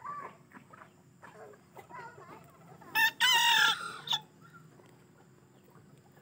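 Serama rooster making a few soft clucks, then crowing once about three seconds in: a short, high crow of just over a second, a territorial call.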